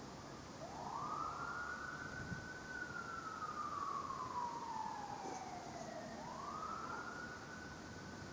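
Emergency vehicle siren wailing: its pitch rises quickly, falls slowly over several seconds, then rises again about six seconds in, over a steady hiss.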